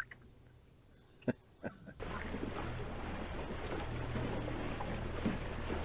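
A couple of short knocks in near quiet, then from about two seconds in the steady sound of a boat under way: a low motor hum with wind and water noise.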